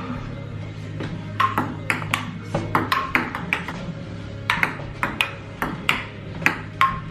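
Table tennis rally: a ping pong ball clicking back and forth off paddles and the table in quick, irregular hits. It starts about a second and a half in, with a brief pause in the middle.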